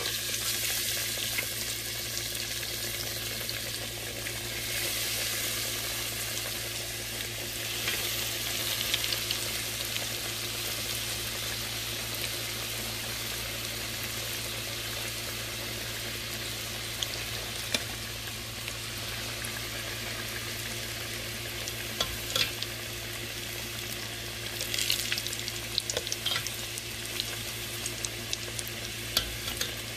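Hot Cheeto-crusted corn dogs deep-frying in hot oil in a stainless steel pot: a steady, dense sizzle and bubbling that starts as the first one is lowered in. Near the end come a few light clicks of metal tongs against the pot.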